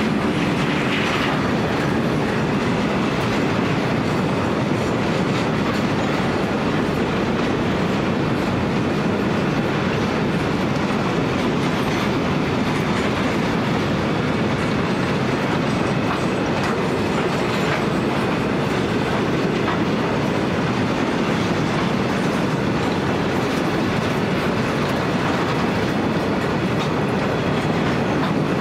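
Grain hopper wagons of a broad gauge freight train rolling past, a steady rumble of steel wheels on the rails.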